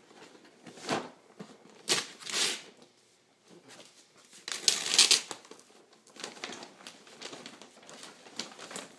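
Wrapping paper being torn and crumpled off a large gift box, in rustling rips about one, two and five seconds in, the one near five seconds loudest, then lighter crinkling.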